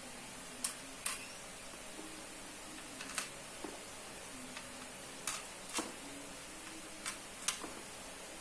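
Handling noise from a hard plastic surge protector casing: about eight sharp clicks and taps, irregularly spaced, over a faint steady hiss.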